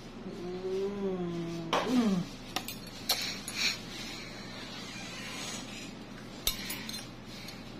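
Small metal pedicure tools, a nail nipper and a pointed probe, clicking and clinking against the toenail: a few sharp clicks in the first few seconds and another near the end. Near the start there is a short hummed voice-like sound that drops in pitch as it ends.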